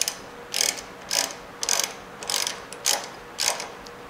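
Hand ratchet wrench clicking in regular strokes, about two a second, as a bolt is run into a motorcycle frame bracket; each burst is the pawl ratcheting on the backswing.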